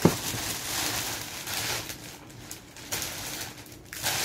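Clear plastic packaging bags rustling and crinkling in uneven bursts as they are handled and pulled open, with a sharp snap right at the start.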